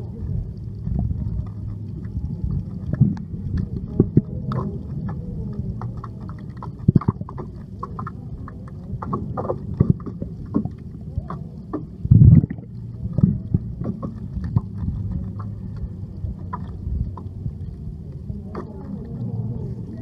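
Muffled underwater swimming-pool sound as heard by a submerged camera: a steady low rumble with many scattered sharp clicks and knocks, the loudest about twelve seconds in.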